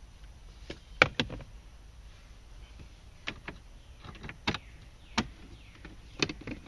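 Scattered sharp clicks and knocks, about eight, the loudest about a second in, as a tool and a mounting screw are worked in behind the dashboard's center console during the refit of the climate control unit.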